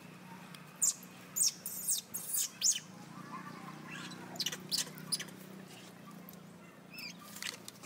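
Short, very high-pitched animal chirps in quick clusters, over a faint steady low hum.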